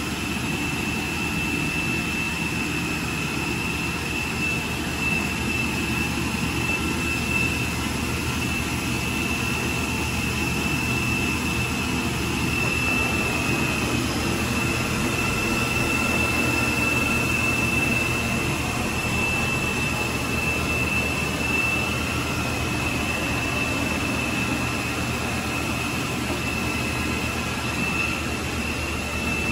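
Challenger VM 1300 vertical machining centre running under power: a steady high whine over a constant low mechanical hum and hiss, with no break.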